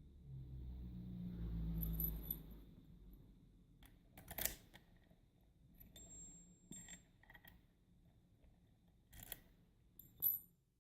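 Faint handling noise, then a few separate small metal clicks and clinks from a rim cylinder lock and its key being handled.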